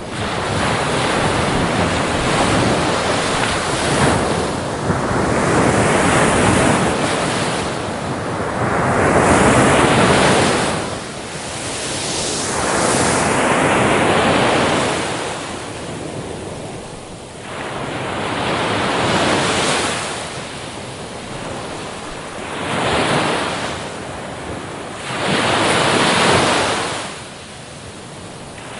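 Ocean surf breaking on a shore: a rush of waves that swells and ebbs every few seconds.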